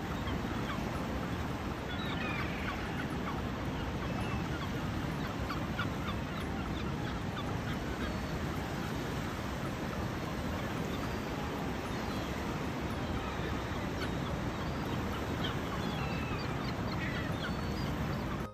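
Flock of gulls calling, many short overlapping calls over a steady wash of surf on a beach.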